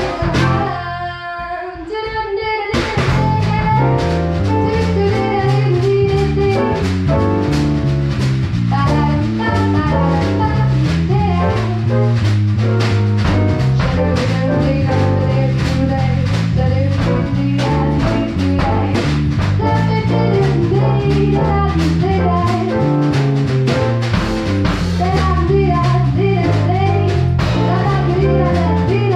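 Swing jazz: a woman singing into a microphone over grand piano, with drums keeping a steady beat. A quieter, thinner stretch near the start gives way to the full band about three seconds in.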